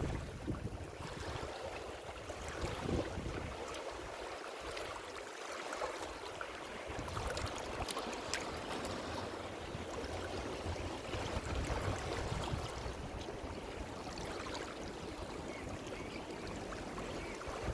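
Ocean waves washing in as a steady hiss of surf. A low wind rumble on the microphone is there at the start, fades for a few seconds, and builds again toward the end.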